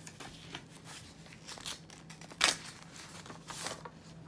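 Paper rustling and crinkling as a paper envelope is opened and a greeting card drawn out of it, with one sharp, louder crackle of paper about two and a half seconds in.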